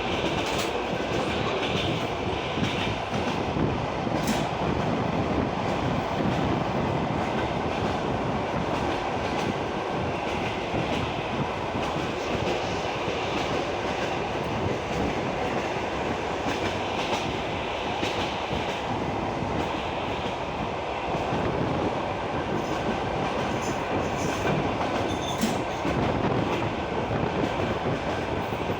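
Wheels of a passenger train carriage rolling over the track, heard from on board: a steady rumble with the clickety-clack of wheels knocking over rail joints.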